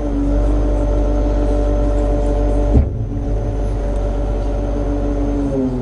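Self-propelled grape harvester running steadily under load while harvesting. Its engine note holds one pitch and drops slightly near the end, and a single sharp clunk comes about three seconds in.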